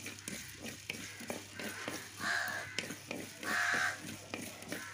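A crow cawing twice, about a second apart, in the second half, over the dry scrape and rattle of a wooden spatula stirring coriander seeds, peppercorns and cumin as they dry-roast without oil in a clay pot.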